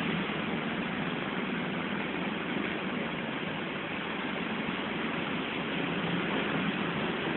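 Steady road traffic: vehicle engines running and tyre noise, with no single event standing out.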